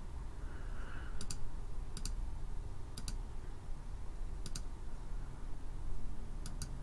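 Computer mouse clicking: about five separate press-and-release double clicks, spaced irregularly, over a faint low hum.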